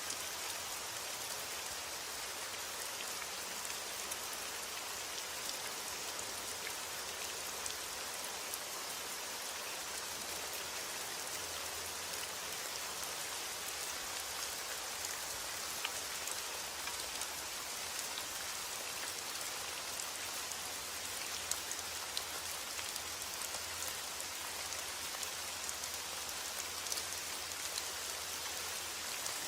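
Steady rain falling, an even hiss with many small scattered drop ticks, used as white noise for sleep.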